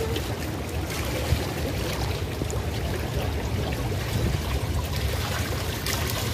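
Hot tub water churning and bubbling steadily from the pool's jets.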